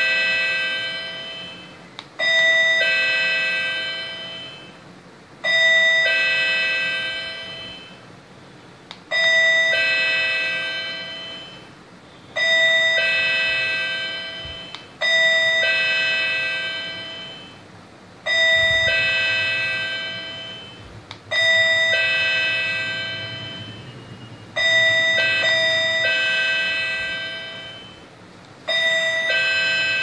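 Electronic two-note ding-dong chime of a token display unit, sounding at each change of the token number called from its remote. It starts nine times, about every three seconds, and each higher-then-lower pair rings out and fades.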